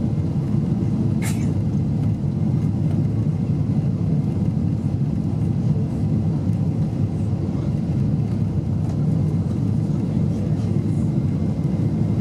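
Steady low rumble of engine and airflow noise inside the cabin of a Boeing 747-8 airliner on its descent, heard from a window seat over the wing. A single brief click about a second in.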